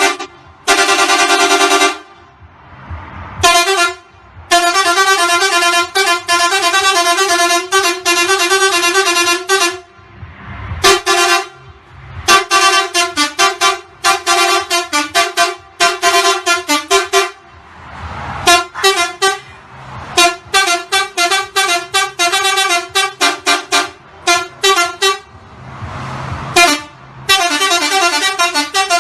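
Vehicle horn honked over and over on one steady pitch, in rapid rhythmic runs of short toots broken by a few longer blasts and brief pauses.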